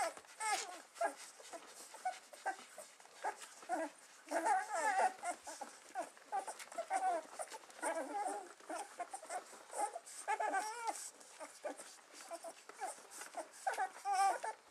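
A litter of newborn puppies squeaking and whimpering while they nurse, many short high cries overlapping one another. The cries are louder and denser around four to five seconds in and again around ten seconds.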